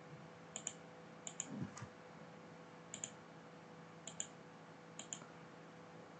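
Computer mouse clicking: about five clicks spaced roughly a second apart, each a quick pair of sharp ticks from the button going down and up, over a faint steady electrical hum.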